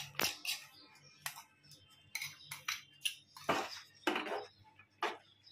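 Steel spoon clinking and scraping against a metal cooking pot while stirring ghee into the millet mixture: a string of sharp, irregular clinks.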